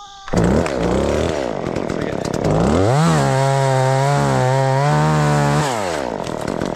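Chainsaw engine coming in abruptly about a quarter second in and revving up and down, then throttled up to a high steady pitch held for about three seconds before dropping back to idle near the end.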